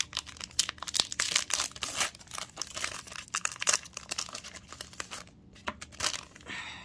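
Crinkling and rustling of a booster pack's foil wrapper and trading cards being handled, a dense run of sharp crackles that thins out briefly about five seconds in.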